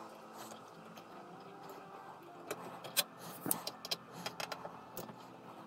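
Faint, scattered light clicks and metallic taps of a screwdriver and small screws as the screws come out of a 3D printer's metal mainboard cover.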